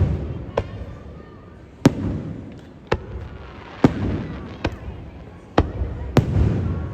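Fireworks going off: a sharp bang about every second, seven in all, each followed by a low rolling rumble.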